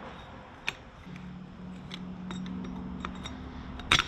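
Pliers clicking and scraping against steel as the tab of a clutch-nut lock washer is bent over to lock the nut. Scattered light metal ticks, with a sharper click about a second in and the loudest just before the end.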